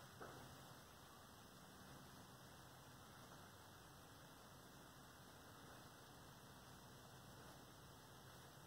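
Near silence: a faint steady low hum under a light hiss, with one faint click just after the start.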